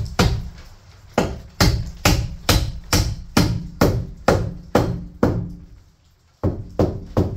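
Hammer blows nailing into wooden framing overhead, a steady run of strikes about two a second, each with a short ring. They break off briefly near the end, then three more blows follow.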